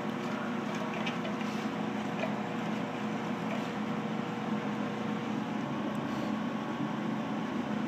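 Homemade welded-steel rocket heater burning wood with a good draft: a steady low rumble with a faint hum and a few light crackles early on. The stove is drawing well but not burning hot, which the builder puts down to its uninsulated burn chamber.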